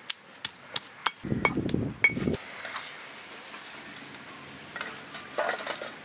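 Green chillies and garlic being crushed on a flat stone slab with a hand-held stone pestle: a series of sharp stone-on-stone knocks, heaviest and densest between about one and two and a half seconds in, with a few lighter knocks near the end.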